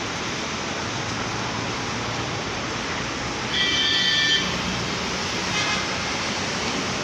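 Steady wash of city traffic noise, with a vehicle horn sounding for just under a second about halfway through and a fainter short toot about two seconds later.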